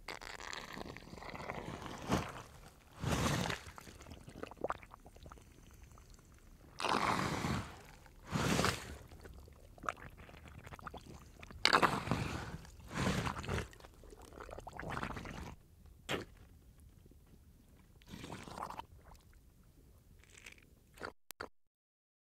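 Mud suction: a string of breathy, wet sucking squelches, each lasting about a second with wet crackling between them, ending about three-quarters of the way through.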